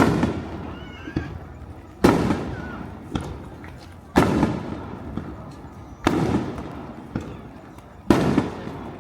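Aerial fireworks shells bursting: five loud booms about two seconds apart, each trailing off in a rumbling echo, with smaller pops between them.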